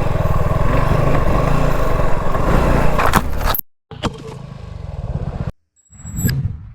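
Motorcycle engine running, with clattering and scraping, heard in short clips that cut off abruptly twice; a sharp knock comes about six seconds in.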